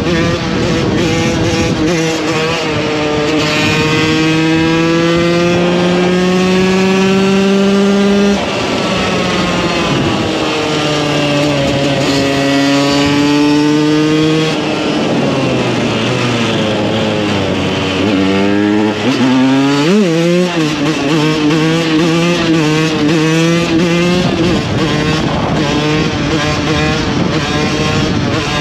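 2015 KTM 125 EXC's two-stroke single-cylinder engine under riding: its pitch climbs under throttle, drops sharply at an upshift about eight seconds in, and climbs again. Midway it falls away as the bike slows, gives a quick rev blip about twenty seconds in, then pulls up again.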